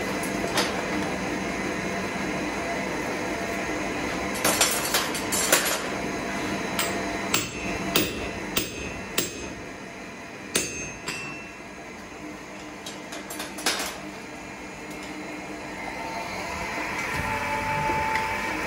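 Hand hammer striking a red-hot axe blank on a steel anvil: a run of separate metallic blows, some close together and others about half a second apart, a few leaving a short ring, over a steady background noise.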